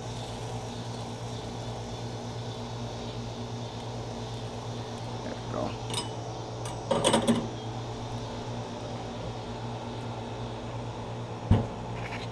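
Steady mechanical hum, with a short clatter of metal clinks from grilling utensils on a charcoal grill's grate a little past the middle, and one sharp knock near the end.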